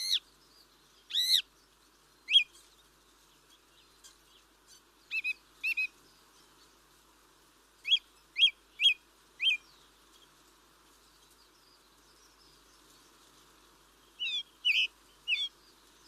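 Bird calls: short, sharp chirps that come in small groups of two to four, with long pauses between them, over a faint steady background hiss.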